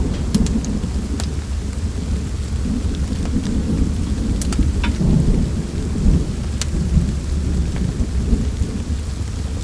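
Fireplace ambience: a steady low rumble with a faint hiss of rain. Burning wood gives about five sharp pops and crackles, one near the start and several in the middle.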